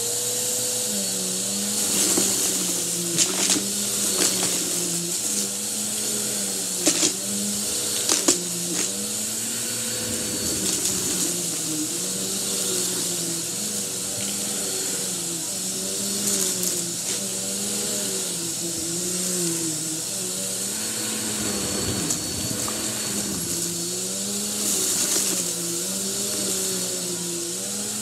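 Upright vacuum cleaner running steadily as it is pushed back and forth into a thick pile of carpet lint and paper bits, its pitch dipping and rising every couple of seconds as the head takes up the fluff. A few sharp clicks sound a few seconds in.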